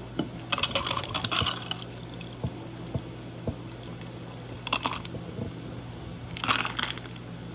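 Iced Navajo tea poured from a jar into a glass mug full of ice cubes and peach slices, in three splashing bursts, with ice crackling and clinking and a few knocks against the glass between pours.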